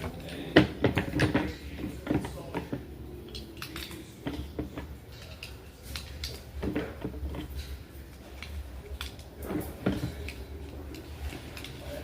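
Scattered metallic clicks and clatter, in quick clusters about a second in, around six to seven seconds and near ten seconds, over a steady low hum: handling of a Taurus G2C 9mm pistol and its magazine rather than shots.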